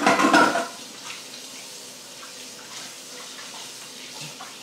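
Water running steadily from a kitchen tap, as for rinsing hands or a cloth, after a brief louder clatter at the start.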